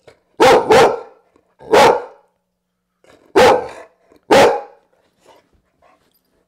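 Grey pit-bull-type dog barking five times, short and loud: two quick barks about half a second in, one near two seconds, then two more a second apart from about three and a half seconds.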